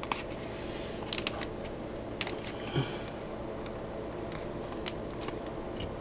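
Hands handling an Intel stock CPU cooler and its fan cable on a motherboard: a few soft scattered clicks and one brief hiss, over a steady low hum.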